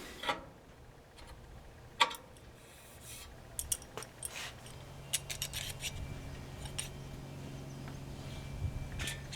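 Scattered light metallic clicks and taps of bolts and knobs being handled and tightened on a bandsaw's extension table. A low steady hum comes in about halfway through.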